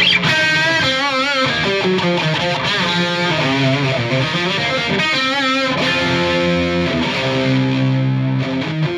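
Electric guitar, a Strat-style partscaster on its bridge humbucker, played through a Marshall JVM210 tube combo on the orange channel with added gain: an overdriven lead line of picked notes and held notes shaken with wide vibrato, about a second in and again about five seconds in.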